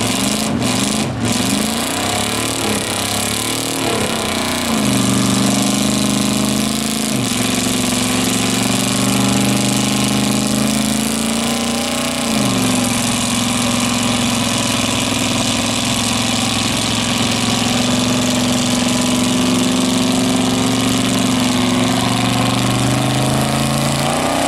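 Lifted mud truck on tractor tires with its engine held at high revs as it churns through deep mud. The engine pitch dips and settles about five, seven and twelve seconds in, then holds a steady drone for the last ten seconds.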